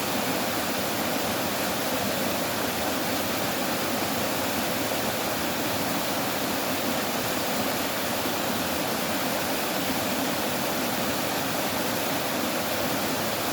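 Running water rushing steadily, a dense unbroken splashing with no let-up or change.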